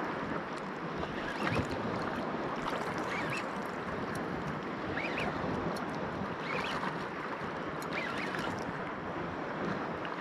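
Steady sea wash and wind noise at the shoreline, with a few faint short rising squeaks every second or two and a brief low thump about a second and a half in.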